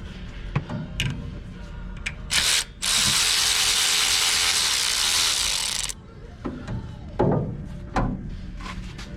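Ratchet work on a 10 mm bolt holding a Honda ignition coil: scattered sharp clicks and knocks, with a loud, steady rushing whir lasting about three seconds in the middle.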